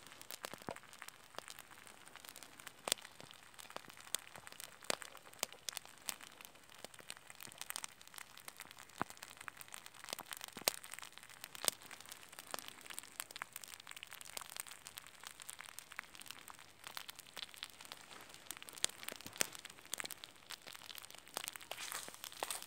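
An egg frying in a pan over a wood campfire: a steady sizzle with frequent sharp pops and spits, mixed with the crackle of the burning wood.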